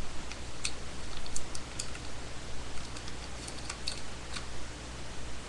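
Folded paper dollar bill crinkling as it is handled and unfolded, a scatter of small, sharp crackles and clicks at irregular intervals.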